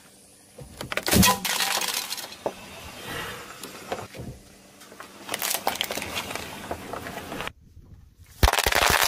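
A car tyre rolls over a Nokia feature phone and crushes it: a sharp loud crack about a second in, then crackling of breaking plastic and grit under the tyre. Near the end, a second loud burst of crackling lasting about a second.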